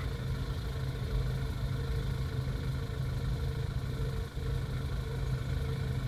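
Honda CRX engine idling steadily, with a brief dip in level about four seconds in.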